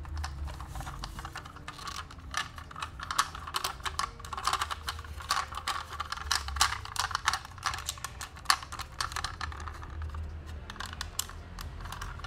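Quick, irregular clicks and taps of a plastic-and-metal toy race car being handled and turned over in the hand, busiest in the middle.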